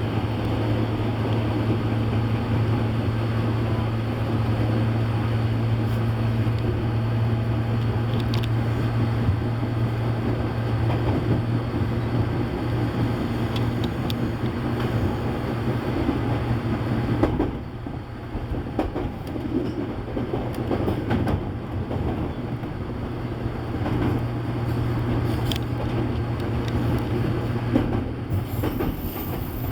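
Electric commuter train running between stations, heard from inside the front car: a steady low hum over the rumble and clatter of wheels on rail. About two-thirds of the way through, the running noise drops and turns duller.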